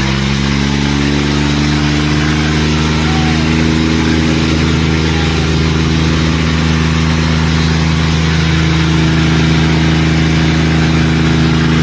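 John Deere 5050 D tractor's three-cylinder diesel engine running steadily. Its pitch rises a little in the first second or two and then holds even.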